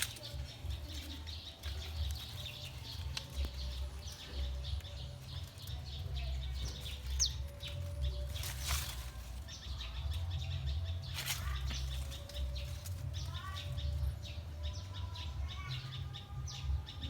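Small birds chirping repeatedly in short high notes, with a few rising whistled calls about thirteen seconds in, over a steady low rumble. Two brief rushing bursts stand out about nine and eleven seconds in.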